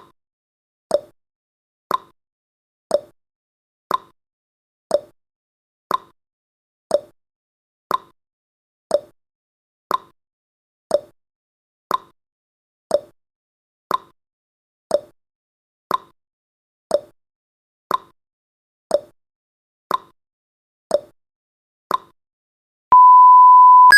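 Countdown timer sound effect ticking once a second, then a steady beep starting about a second before the end as the countdown reaches zero.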